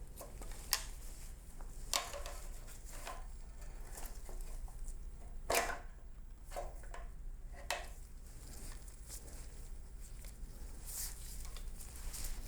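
Scattered clicks and taps of small metal parts being handled and worked together during hand assembly of a transmission shifter, the sharpest knock about halfway through. A steady low hum runs underneath.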